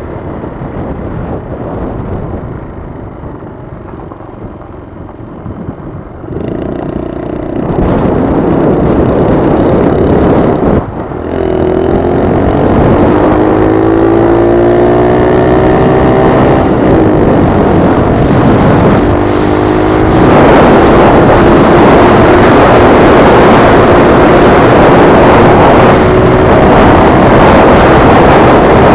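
Honda CT70's small single-cylinder four-stroke engine running as the bike rides along a gravel road, with a steady rush of wind and road noise. There is a brief break about eleven seconds in, after which the engine note climbs steadily as it accelerates, and the sound grows louder again about twenty seconds in.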